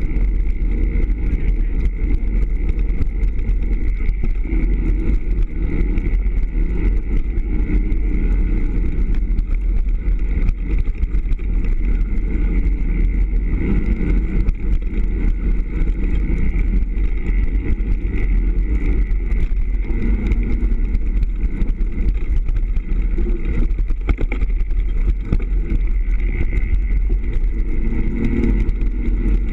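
Steady, loud rumbling noise of a mountain bike descent heard from a camera riding along: wind on the microphone and the bike rattling over a dirt forest trail.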